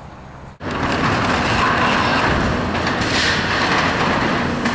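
Caterpillar excavator tearing down a metal-roofed barn: a steady engine hum, then from just under a second in a loud, continuous crunching and scraping of sheet-metal roofing and building debris being pulled apart, with a few sharper metallic knocks.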